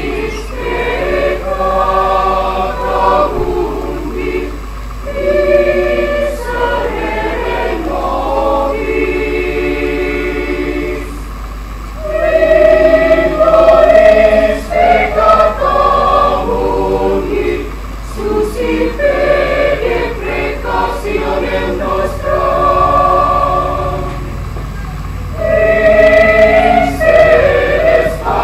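Mixed choir of men's and women's voices singing together in sustained phrases with brief breaks between them, swelling louder about twelve seconds in and again near the end.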